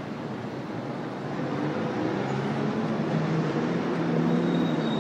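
City street traffic noise, with a low vehicle engine hum that grows louder from about a second and a half in.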